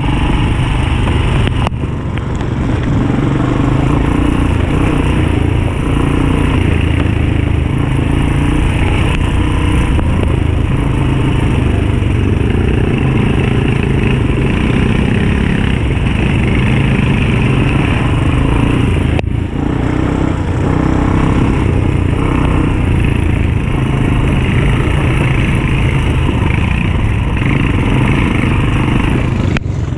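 ATV engine running steadily under way on a dirt trail, with two brief dips in the sound, one about two seconds in and one past the middle.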